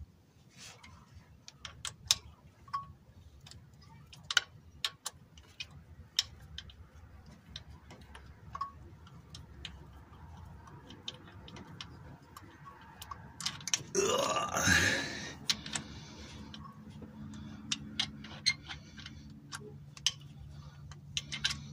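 Scattered sharp metallic clicks and clinks as the timing-chain guide rail bolts are spun in by hand with a socket and extension. About 14 seconds in there is a louder sound lasting about a second that rises in pitch.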